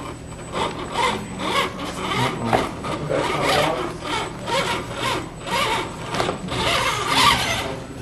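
1/10-scale RC rock crawler's electric motor and geared drivetrain whirring in repeated short bursts as the throttle is worked.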